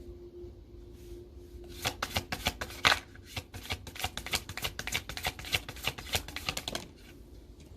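A tarot deck being shuffled by hand: a rapid run of card flicks and slaps starting about two seconds in and stopping about five seconds later.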